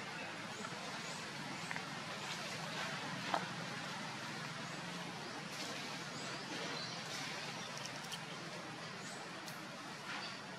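Steady outdoor background noise with a low hum underneath, scattered small clicks and a few faint, short high chirps.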